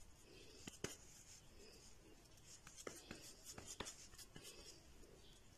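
Hands patting and pressing a moist chicken, mashed-potato and vegetable kabab mixture into a patty between the palms: faint soft rubbing with a few small sharp clicks.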